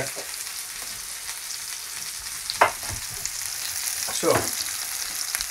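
Thin pieces of fish frying in a pan of hot oil and butter, a steady crackling sizzle. A sharp knock comes about two and a half seconds in, with a couple of lighter clatters later.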